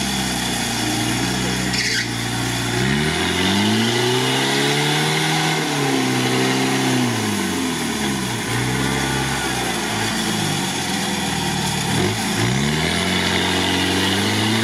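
Engine of a modified UAZ 4x4 on large mud tyres being revved hard while it sits stuck in deep mud, with the wheels spinning. The revs climb and drop several times as the driver works the throttle.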